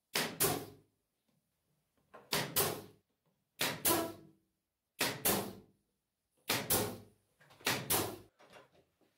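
Pneumatic nail gun firing six shots, about one every second and a half, each a sharp double crack as it drives a fastener through 3/4-inch MDF to join two panels of a subwoofer box.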